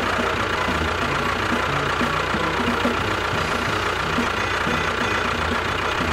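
A tractor engine running steadily at idle with a knocking beat, for a miniature model tractor.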